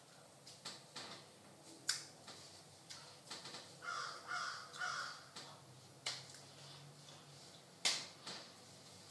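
Scattered sharp taps and slaps of hands meeting while signing, the loudest about two, six and eight seconds in. Between about four and five seconds in come three short calls from some other source.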